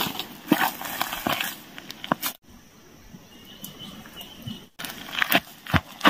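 Dry grass, twigs and brush crackling and rustling irregularly under someone's feet and body as they push through dry scrub on foot, with a quieter stretch in the middle.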